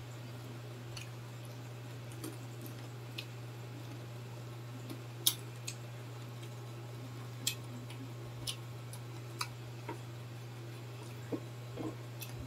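Close-up chewing and crunching of crispy-fried pork innards, with scattered sharp crackles; the loudest comes about five seconds in. A steady low electrical hum runs underneath.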